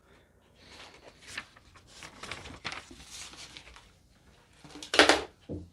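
Plastic vacuum parts and attachments being handled and fitted together: light rustling and clicking, with one short, loud plastic clack about five seconds in.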